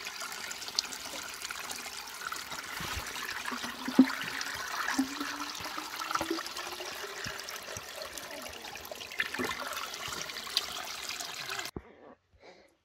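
Spring water splashing steadily onto stones, then pouring into a wide-mouth plastic bottle held under the trickle. Partway through, a faint tone rises slowly in pitch as the bottle fills. The water sound stops abruptly about a second before the end.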